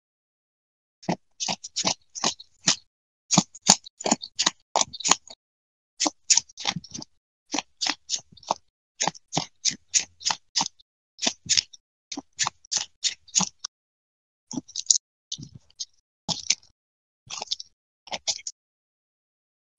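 Yu-Gi-Oh! cards being shuffled and laid down on a playmat: a long series of short, crisp card snaps, about three a second, with a few brief pauses.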